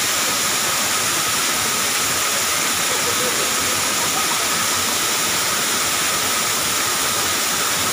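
Waterfall pouring down a rock face: a steady, even rush of falling water, heavy in hiss, with no change in level.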